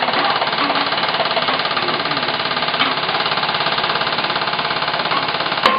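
Rapid automatic fire from airsoft guns: a steady, fast, continuous rattle of shots, with one sharper crack near the end.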